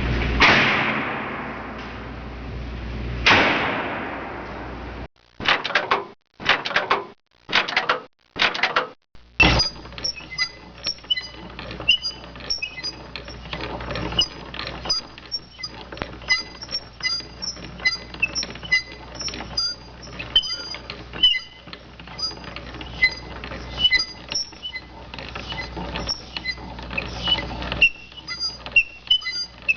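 Door sound effects: two door slams, each with a long echoing decay, then four short creaks. From about nine seconds in comes a long stretch of dense clicking and rattling, scattered with short high squeaks.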